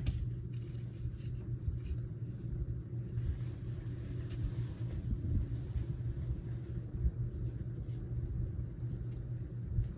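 Ceiling fan with a Litex Ellington motor and cut-down Harbor Breeze blades running at speed 2 of a 4-speed wall control: a steady low hum and rumble.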